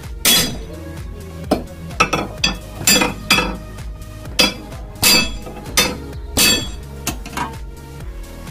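Sharp metallic clinks and knocks from steel car-body parts being struck and fitted: about a dozen ringing metal strikes at uneven intervals, over a steady music bed.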